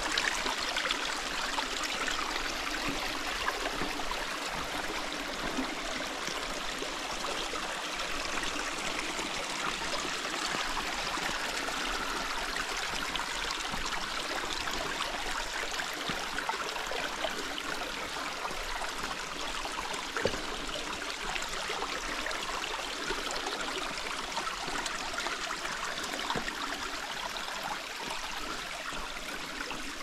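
Stream running steadily: an even, unbroken rush of water.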